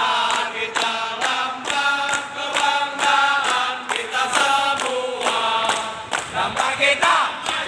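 A group of men singing a rhythmic chant together, with hand claps keeping a steady beat of about two to three a second.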